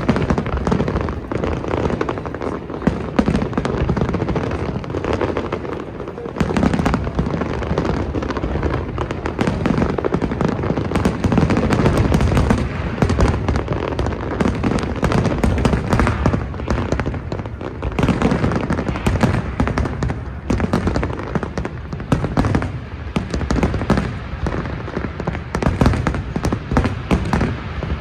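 Fireworks display in a heavy, continuous barrage: rapid overlapping booms and crackling bangs with no real pause.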